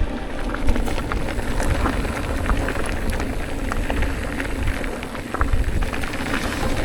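Skis sliding and scraping over snow on a downhill run, with wind rumbling on the microphone and small scattered clicks of snow and ice.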